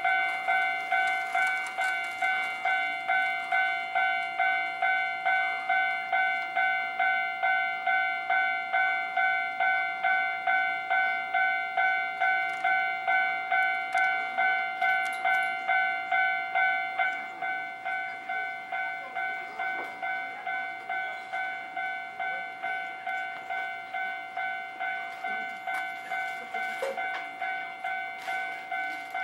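Japanese level-crossing warning bell ringing in an even, repeating two-tone-like clang, about three strikes every two seconds. About seventeen seconds in it drops noticeably in volume and keeps ringing, with faint clicks near the end.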